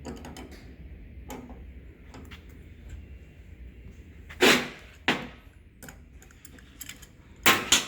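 A few sharp knocks and clicks of sprayer pump parts being handled and set down, the loudest about four and a half seconds in and two more near the end.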